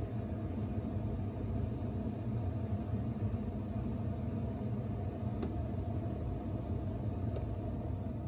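Keurig single-serve coffee maker running through its brew cycle before any coffee comes out: a steady low hum and rumble, with two faint ticks about five and seven seconds in.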